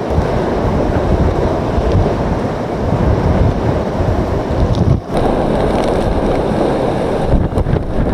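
Hurricane-force wind battering the microphone with irregular low buffeting, over a dense rush of wind and rain. The sound dips briefly about five seconds in.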